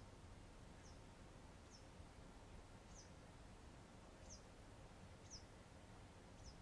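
Faint high chirps from a small bird, each a short falling note, about seven of them at roughly one a second over near-silent background hiss.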